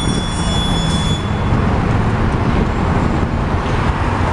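Steady low engine-and-traffic rumble of heavy machinery at a bridge construction site, with a few faint high squeals in the first second or so.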